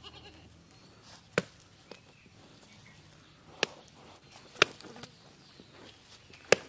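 Live climbing perch flipping on packed bare earth: four sharp slaps, spaced unevenly a second or two apart.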